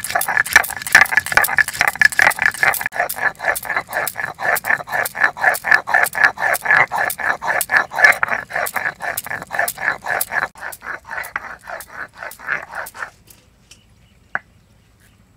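A stone muller is rubbed back and forth on a flat grinding stone (sil-batta) to grind garam masala into paste. It makes fast, rhythmic scraping strokes, about four to five a second, that stop abruptly about 13 seconds in. A single sharp click follows a little later.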